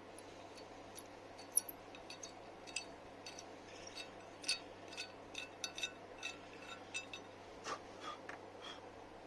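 Light metallic clinks and taps, irregular and ringing briefly, as small metal brake parts or hand tools are handled and set down. The loudest clink comes about one and a half seconds in, and the clinks grow busier from about four seconds in.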